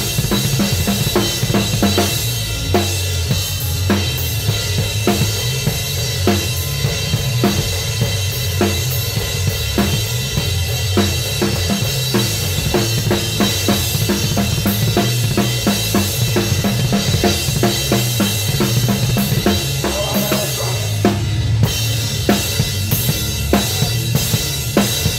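A live band playing loud: a Mapex drum kit heard close up, with kick drum, snare and cymbals hit hard and fast over sustained low bass and guitar notes. The cymbals drop out briefly a little after twenty seconds.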